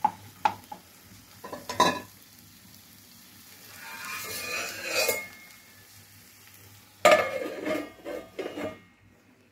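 Wooden spatula knocking and scraping in a nonstick frying pan as capsicum pieces are stir-fried, with a rising hiss of sizzling in the middle. About seven seconds in, a glass pan lid with a steel rim clatters onto the pan in a few loud knocks.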